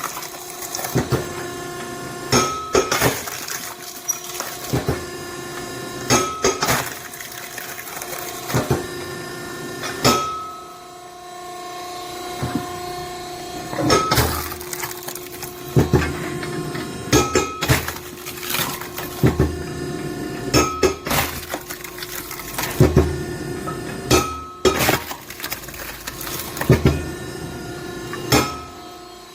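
Hydraulic log splitter running with a steady hum from its pump while its cross-shaped wedge splits green oak rounds. Sharp cracks and clatter of splitting, falling wood come every second or two.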